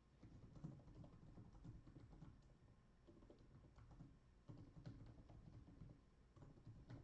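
Near silence, with faint scattered ticks and soft taps of trading cards being handled and shuffled.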